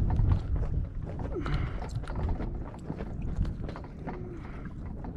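Handling noise as a deep-hooked flounder is worked free: scattered light knocks and clicks of the fish, hook and tools on the boat deck, over a low rumble.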